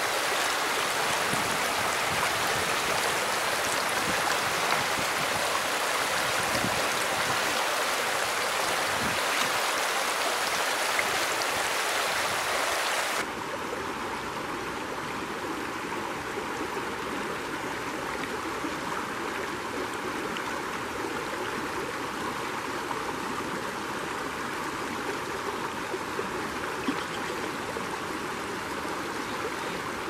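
Shallow creek running over gravel and logs: a steady wash of flowing water. About 13 seconds in it switches abruptly to a slightly quieter, less hissy stretch of the creek.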